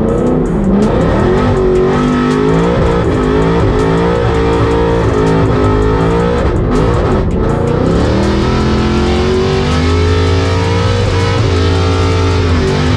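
Swapped-in BMW M5 V8 of an E36 drift car, heard from inside the cabin, revving up and down again and again through a drift. Guitar-driven music is laid over it.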